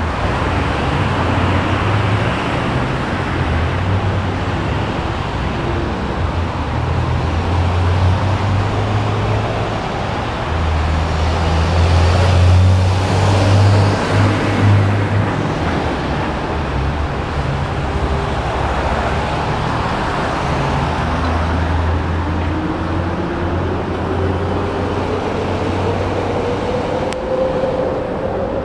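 Road traffic on a rain-wet city street: cars and a truck passing with tyre hiss over a steady low rumble, loudest about halfway through. Near the end a rising whine comes in, like a vehicle pulling away.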